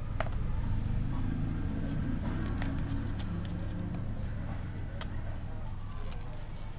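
Light clicks and rustles of a cardboard pull-tab board book being handled, its page smoothed and a pull tab gripped, over a steady low background rumble.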